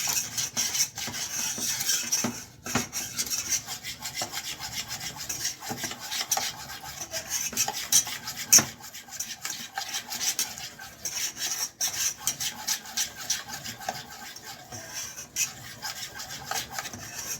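A spoon scraping and stirring flour into melted butter in a pan, cooking the roux for a béchamel sauce, in a quick, uneven run of scraping strokes with one sharper knock about eight and a half seconds in.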